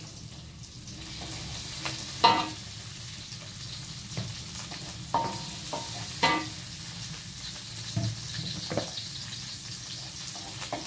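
Shallots and garlic sizzling in oil in a steel wok, stirred with a metal spatula that clinks sharply against the pan a few times.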